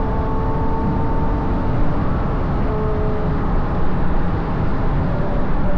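Ferrari GTC4Lusso's naturally aspirated V12 with a Capristo exhaust running at a steady cruise, its note shifting slightly in pitch now and then. Heavy wind and road noise on the outside-mounted microphone is the loudest part.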